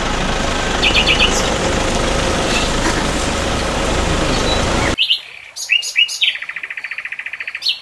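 Birds chirping and singing, at first over the steady noise of a vehicle engine running. About five seconds in, the engine noise cuts off suddenly. A bird then gives a few sharp whistled notes and a rapid, even trill lasting about a second and a half.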